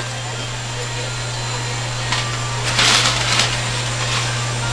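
Steady low machine hum with constant background kitchen noise, and a short burst of hiss about three seconds in.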